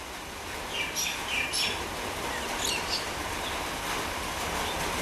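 Birds chirping in short bursts, several chirps about a second in and a couple more near the middle, over a low background rumble that slowly grows louder.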